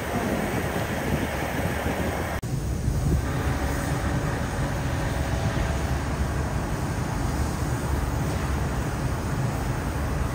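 Grove TM1500 truck crane's diesel engine idling: a steady low rumble that breaks off for an instant about two and a half seconds in.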